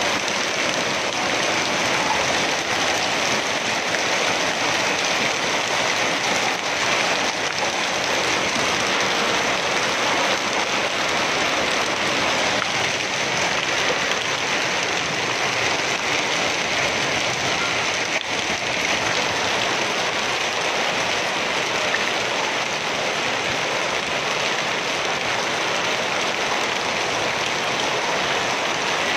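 Heavy hail mixed with rain pelting wet pavement and surfaces in a dense, steady patter, the sound of a strong hailstorm.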